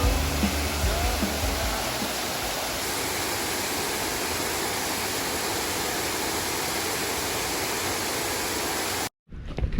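Waterfall rushing steadily, with the tail of background music fading out in the first second or so; the rushing cuts off abruptly near the end.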